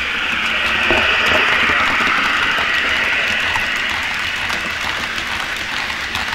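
Model train running on the layout track: a steady hiss that swells about a second in and then slowly fades.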